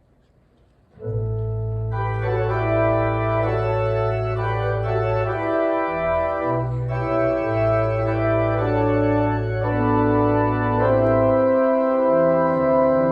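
Church organ beginning the postlude about a second in, playing sustained chords over long-held low pedal notes.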